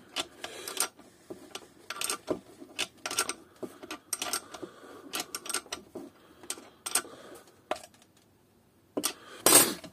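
Hands working a metal pneumatic quick-connect fitting and PTFE tape on a brake bleeder gun: irregular small clicks, taps and rustles, with a louder, brief noise near the end.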